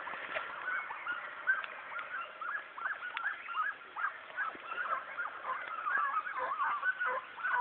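A pack of hunting hounds giving tongue, many short overlapping yelps one after another: the dogs are working a rabbit's scent.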